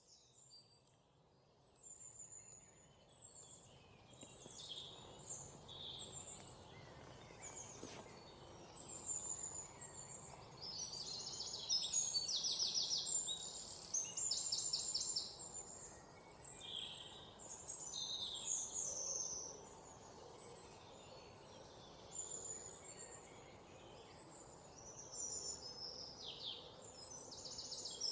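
Several songbirds chirping: short sliding whistled notes and rapid trills over a faint steady outdoor hiss, fading in over the first few seconds.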